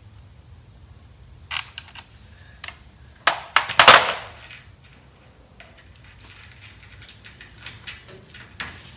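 Metal hardware clinking and knocking as bolts and parts are fitted by hand: a few sharp clanks, the loudest about four seconds in, then a run of quick, light clicks.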